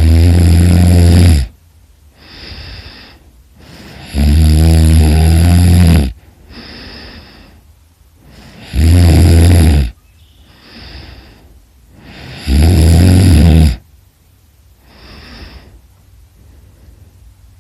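A person snoring: four loud, low, buzzing snores about four seconds apart, each followed by a shorter, quieter breath. The snoring stops after the fourth.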